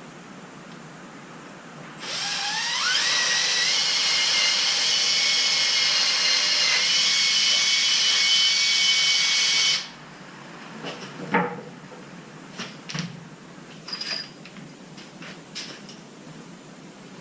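Power drill boring a pilot hole for a lag bolt into a wooden 2x6 board: the motor spins up with a quickly rising whine, runs steadily for about eight seconds, then stops suddenly. A few light clicks and knocks follow.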